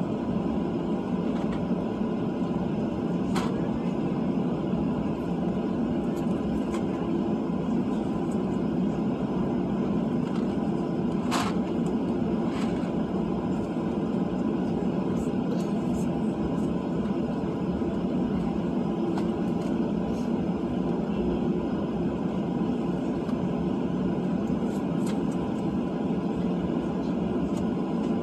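Cabin noise of a Boeing 737-700 in its climb after takeoff: the CFM56-7B turbofans and rushing air make a steady, unchanging rumble, with a few faint clicks about 3, 11 and 12 seconds in.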